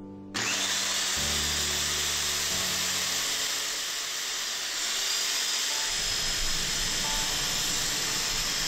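Ronix electric polisher switching on about a third of a second in and running, its abrasive disc sanding a brass padlock held flat against it: a steady hiss of abrasive on metal over the motor's whir.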